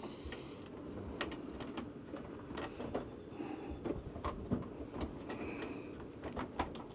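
Gloved hands handling and routing electrical wiring, with scattered light clicks and rustle of wire and plastic.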